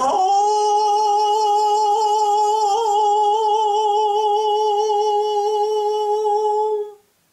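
A man singing unaccompanied, holding one long high note with a slight vibrato for about seven seconds until it stops: the closing note of the song.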